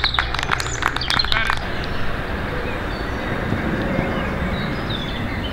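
Scattered hand clapping for a batsman reaching fifty, cutting off abruptly about a second and a half in. Then open-air ambience with a few bird chirps.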